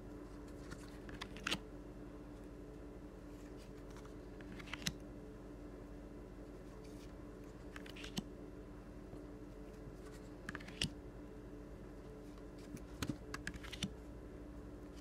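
Stiff cardstock cards being flipped and laid onto a pile: short clicks and slides every few seconds, with a quick run of them near the end, over a faint steady hum.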